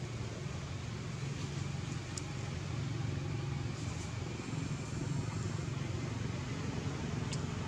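Steady low hum and rumble of background noise, with two brief high chirps, one about two seconds in and one near the end.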